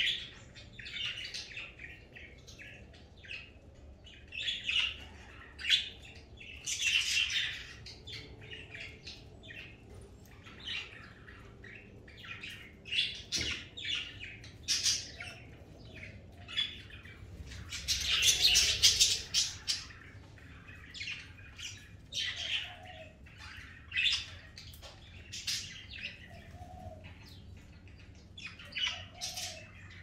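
A flock of budgerigars chirping and chattering in many short, irregular calls, with a longer, louder stretch of chatter a little past halfway.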